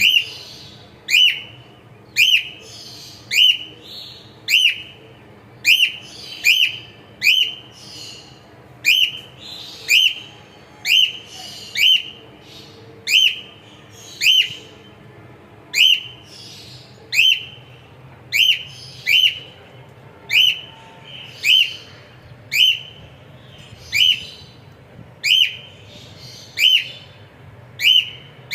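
Cockatiel calling over and over: short, sharp, whistled chirps, each a quick hooked pitch sweep, repeated about once a second, sometimes in quick pairs.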